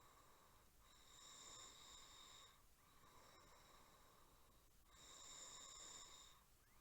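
A person snoring faintly in a slow, even rhythm: two drawn-out snores about four seconds apart, each lasting over a second, with quieter breathing between them.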